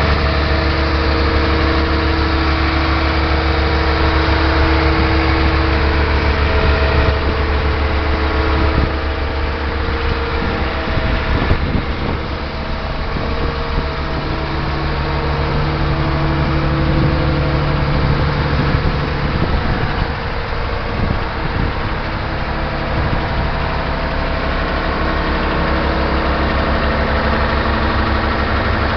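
Diesel engine of a Mercedes-Benz Actros concrete pump truck running steadily at idle, its note shifting a couple of times.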